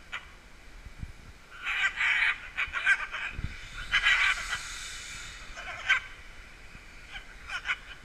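Scarlet macaws calling in short squawks, about five or six scattered through, the loudest about four seconds in.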